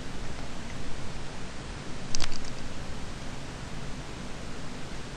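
Steady background hiss, with one brief click about two seconds in.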